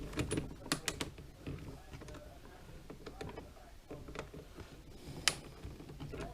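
Light clicks and taps of small parts being handled as a spacer and wheel are fitted onto a 1/14 scale RC trailer's axle: a scatter of irregular clicks, the sharpest about five seconds in.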